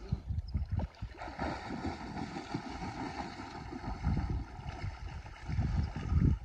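Wind buffeting the microphone in uneven gusts, over a steady rush of water.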